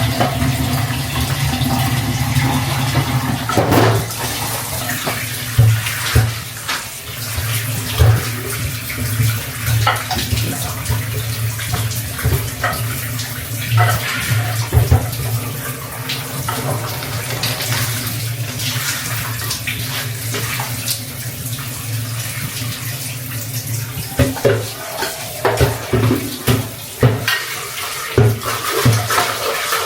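Water running and splashing steadily, with scattered small knocks.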